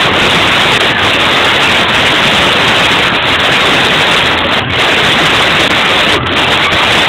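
Loud, steady wash of party noise from a crowded room, with no single voice or tune standing out.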